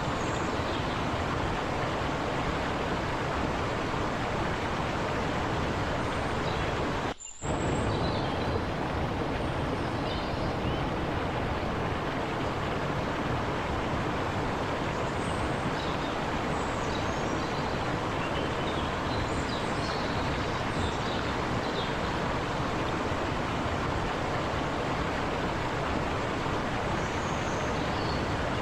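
Forest river water rushing steadily over rocks, an even, unbroken hiss, with a few faint high chirps now and then. The sound drops out abruptly for a moment about seven seconds in.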